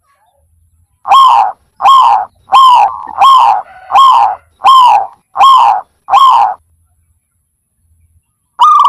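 Zebra dove calling: a run of eight cooing notes about two-thirds of a second apart, each slightly falling in pitch, then after a pause one more note right at the end.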